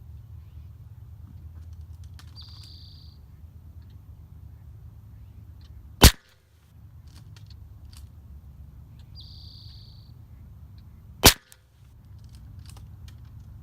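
.22 LR firearm shots: two single sharp cracks about five seconds apart.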